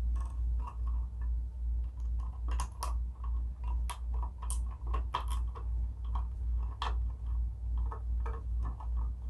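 Scattered small clicks and ticks of hands handling stiff copper wires and screwing a plastic wire nut onto the black wires, over a steady low hum that pulses about two to three times a second.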